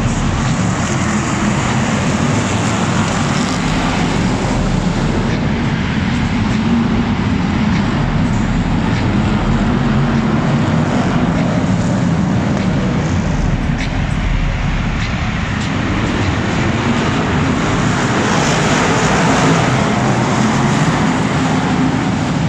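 A pack of BriSCA F1 stock cars with 427 small-block Chevrolet V8 engines racing round a short indoor track. The engines make a loud, continuous roar that echoes in the hall and swells slightly near the end.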